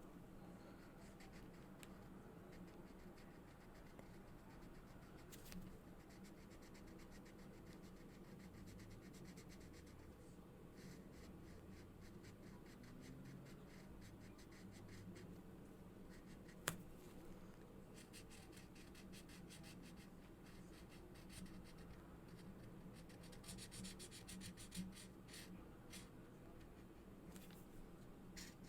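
Marker tips stroking back and forth on paper while colouring, faint runs of rapid scratchy strokes coming and going. A single sharp click about two-thirds of the way in.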